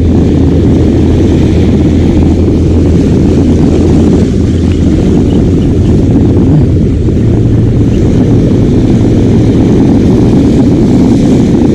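An engine running steadily close by, its pitch stepping up slightly about halfway through.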